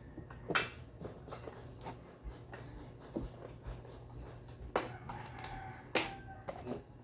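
Light clicks and knocks of small parts being handled, with three sharper ones about half a second, nearly five and six seconds in, over a faint steady hum.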